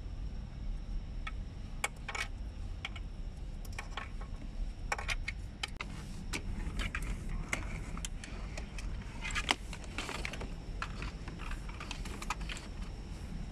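Irregular light clicks and rattles of plastic as a thin LED cable is pushed and pulled through the bare dashboard frame and air vent housings, with one sharper knock about nine and a half seconds in, over a steady low rumble.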